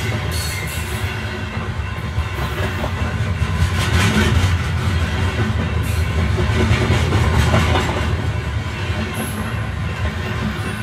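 Lionel Santa Fe 8400 snowblower model locomotive running on its track: a steady electric-motor hum with the rattle of its wheels on the rails.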